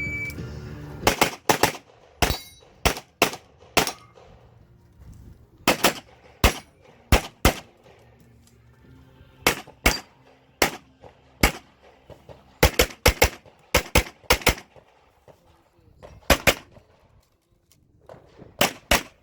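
A shot-timer start beep, then an IPSC Standard-division handgun firing a stage: rapid pairs and strings of pistol shots broken by pauses of a second or two, about two dozen shots in all.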